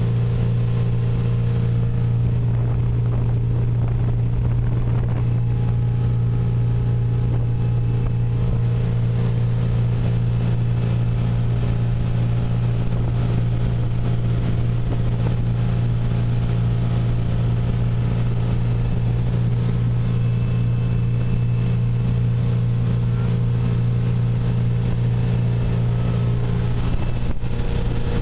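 Motorboat engine running steadily at cruising speed, a constant low drone that does not change, with water rushing past the hull.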